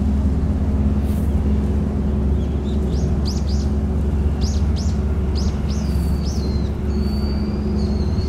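Steady low drone of a small tugboat's diesel engine running under way. From about two and a half seconds in, a bird chirps in quick high notes, then gives a longer held high call near the end.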